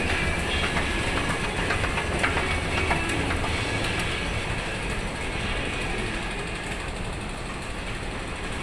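Steady mechanical rumble and noise of an underground railway station, from escalator machinery and trains, with a few sharp clicks in the first few seconds and the rumble easing a little after about five seconds.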